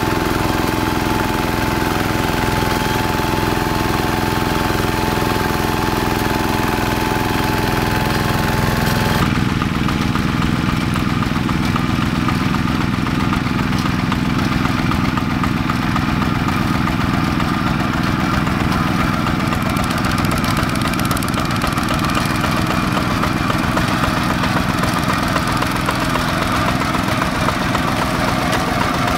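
Single-cylinder diesel engines of two-wheel hand tractors running steadily under load while ploughing wet paddy mud. About nine seconds in the sound changes abruptly to a second, similar tractor.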